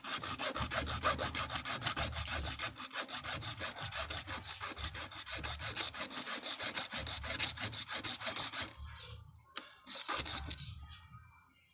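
Bare hacksaw blade, held in the hand, sawing into the case of a small box capacitor in fast, even strokes. The sawing pauses about nine seconds in, then a few more strokes follow.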